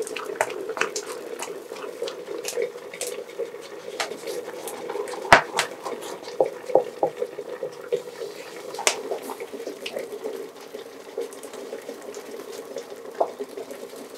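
Thick cornmeal porridge bubbling and plopping in an aluminium pot while a wooden spoon stirs and scrapes through it, with short knocks of the spoon against the pot; the sharpest knock comes about five seconds in. A steady hum runs underneath.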